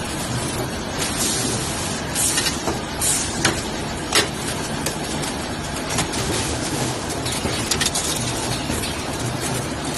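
Automatic 2D CNC wire bending and welding machine running: a steady mechanical noise with a low rumble, broken by short sharp hisses and clicks, several close together about two to four seconds in and more scattered later.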